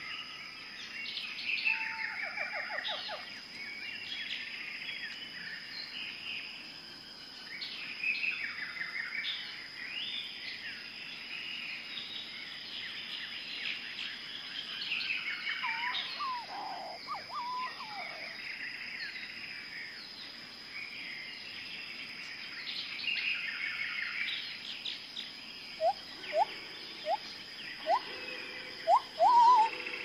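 Tropical forest ambience of many birds chirping and trilling over one another, under a steady high-pitched whine. Near the end comes a run of short, upward-sweeping calls about once a second, louder than the rest.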